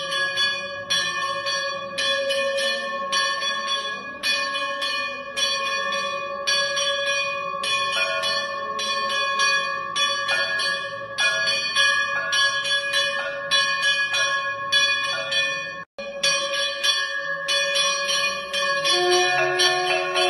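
Temple aarti bells ringing, struck at a steady rhythm of about two strokes a second over a continuous ringing tone. The sound cuts out for an instant about sixteen seconds in.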